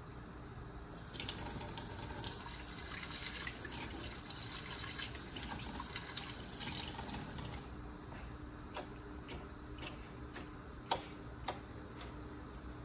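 Kitchen faucet water running into a stainless steel sink for about six and a half seconds and then shut off, as parts of the faucet's sprayer head are rinsed under it. After it stops come a handful of sharp ticks and drips.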